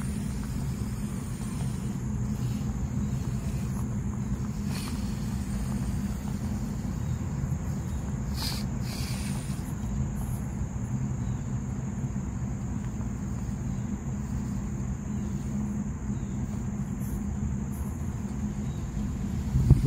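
Custom-built Axial SCX24 micro RC rock crawler driving over rocks: a thin, steady high whine over a low rumble, with a brief sharper scrape about halfway through.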